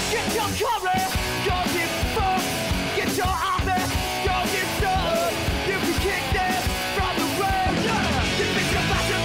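Punk rock theme music with shouted vocals, electric guitars and a driving drum beat.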